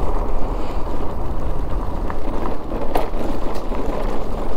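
Steady wind and road noise from a motorcycle rolling along a narrow country road, with no clear engine note.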